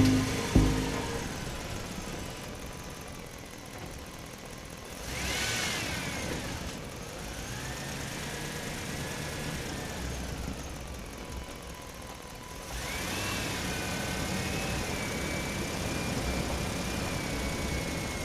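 Engine-like running sound, with wavering higher tones over it about five seconds in and again from about thirteen seconds.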